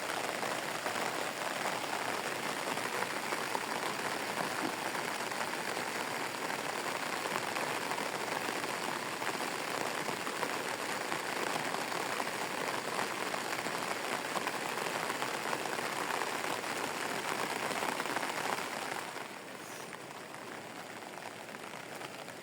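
Steady rain falling, a dense even patter of drops; about 19 seconds in it becomes noticeably quieter.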